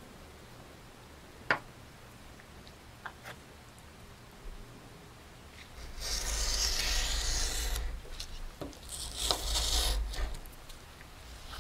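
A utility knife blade drawn through a sheet of P500 sandpaper, cutting it in two strokes: a long one of about two seconds halfway through and a shorter one near the end. A sharp click comes about a second and a half in.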